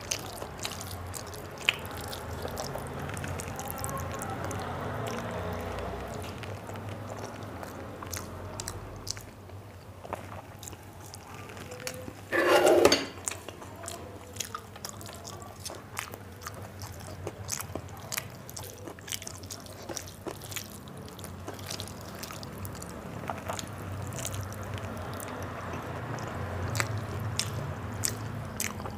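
Wet, sticky squishing of rice being mixed and kneaded by hand on a steel plate, with chewing and many small clicks. A brief, louder sound comes about halfway through.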